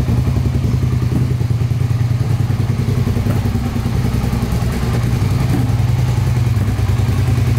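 Suzuki SV650S's 645 cc V-twin engine idling steadily.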